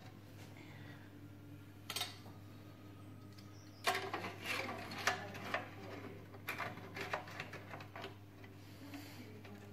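Clicks, taps and light rattling as parts of a Neff Slide and Hide oven door are handled and fitted, with a single knock about two seconds in and a busy run of clicks from about four to eight seconds, over a steady low hum.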